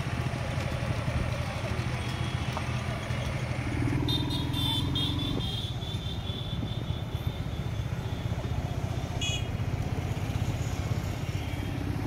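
A vehicle engine running steadily in street traffic. Short horn toots sound about four seconds in and again near nine seconds.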